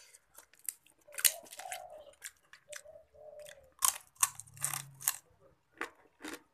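Close-miked chewing of a man eating nasi padang by hand: irregular wet mouth clicks and smacks, loudest about a second in and again around four to five seconds in as he takes another mouthful.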